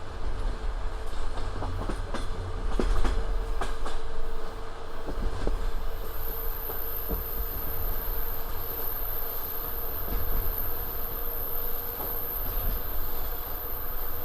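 Passenger train running along the track: the wheels rumble steadily, with a few clicks over rail joints about two to four seconds in and a faint steady hum beneath.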